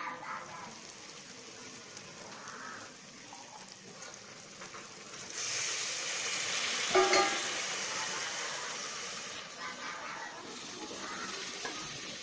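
Meat and spice masala sizzling in a pot, quietly at first. About five seconds in, the sizzle jumps suddenly louder, as when water hits the hot oil, then slowly dies down. There is one brief sharp sound about seven seconds in.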